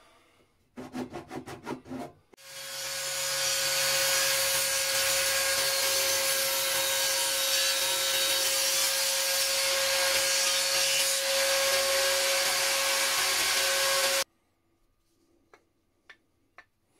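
A few short clacks about a second in, then a table saw starts up and runs, its spinning blade cutting through a wooden block with a steady whine under a loud hiss. The sound cuts off abruptly near the end.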